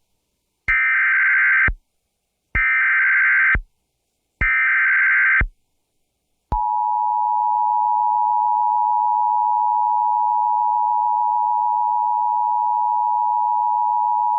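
Emergency Alert System tones for a severe thunderstorm warning. Three one-second bursts of the warbling SAME digital data header come about a second apart. Then, about six and a half seconds in, the steady two-tone EAS attention signal starts at 853 and 960 Hz.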